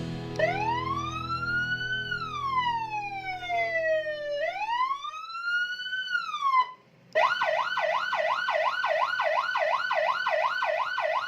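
Custom Senken police-escort siren fitted to a Honda ADV, on test. It sounds a slow rising-and-falling wail twice, cuts off about seven seconds in, and after a short break switches to a fast warbling yelp of about three sweeps a second.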